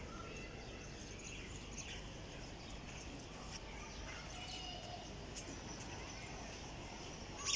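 Steady outdoor background noise with a few faint, scattered bird chirps.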